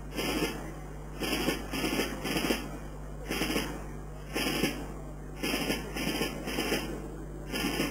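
A rhythmic marching beat of noisy, unpitched strikes, roughly one a second with a quick run of three twice, over a steady low hum.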